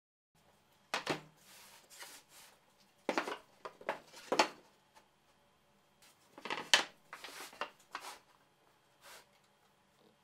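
Cut plywood panels being handled on a wooden workbench: a series of wooden knocks and scrapes as the boards are set down and slid into place.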